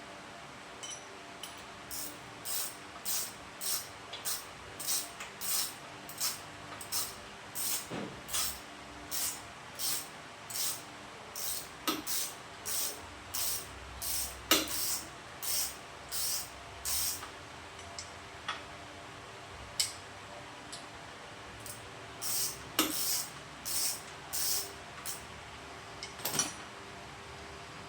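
Ratchet spanner working out the top front engine mounting bolt of a Kawasaki HD3 motorcycle: runs of short clicks, about two to three a second, with a pause in the middle and a few louder metal knocks.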